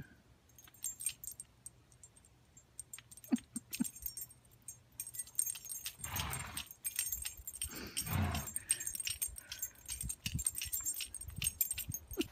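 Light metallic jingling and clicking of a dog's collar and tags as a horse nibbles at the dog's neck. Two louder rushing noises come about six and eight seconds in.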